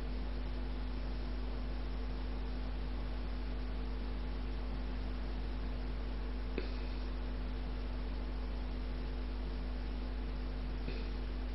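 Steady low electrical hum over an even hiss, with two faint clicks, about six and a half seconds in and near the end.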